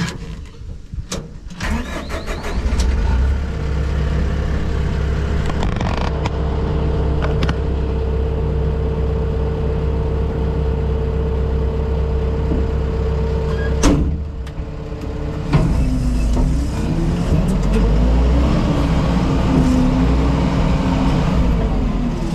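SkyTrak telehandler's diesel engine running, picking up loudly about two seconds in and holding a steady drone as the machine drives. There is a single sharp clunk about fourteen seconds in, after which the engine note rises and falls with the throttle.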